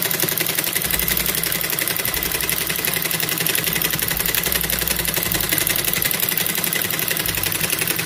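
Servo-motor industrial high-speed sewing machine running a buttonhole attachment, stitching a buttonhole through doubled fabric with a steady, rapid, even rattle.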